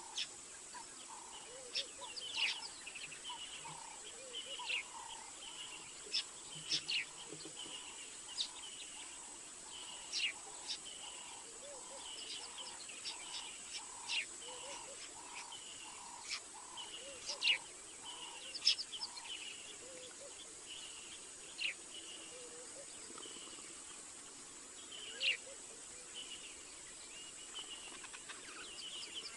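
Night ambience of many short, sharp chirping calls over a steady insect-like trilling. A low call repeats about once a second, stopping about two-thirds of the way through. A constant high-pitched whine runs underneath.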